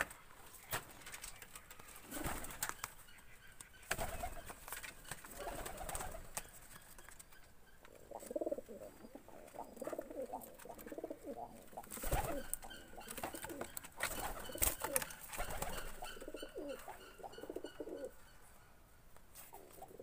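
Domestic pigeons cooing over and over, mostly in the second half, with a few sharp knocks.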